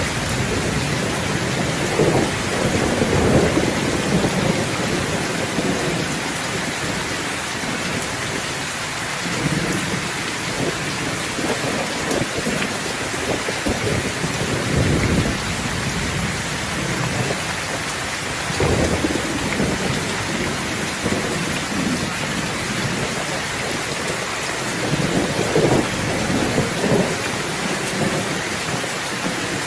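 Thunderstorm: steady rain hissing, with thunder rolling in low rumbles several times, the strongest roll a few seconds in.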